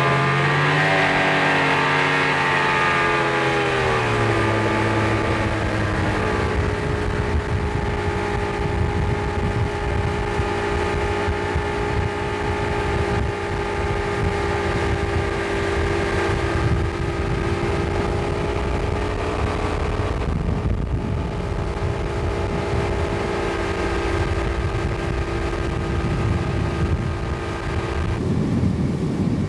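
Mercury outboard motor driving a speedboat at speed, its pitch wavering and climbing over the first few seconds, then holding steady, and shifting again near the end.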